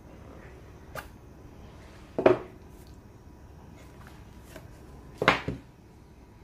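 A Meizu M6 phone's white cardboard retail box being opened by hand: the lid comes off and the box parts are set down on a desk. There is a light tap about a second in, then two louder knocks about two and five seconds in.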